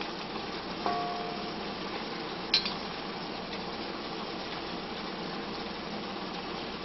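Wooden chopsticks clinking against a ceramic bowl and a cast iron wok while stir-fried shrimp and vegetables are served. There is one ringing clink about a second in and a short sharp click about two and a half seconds in, over a faint steady hiss.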